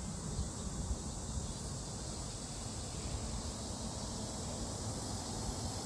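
Outdoor ambience: wind buffeting the microphone as an uneven low rumble, over a steady high hiss.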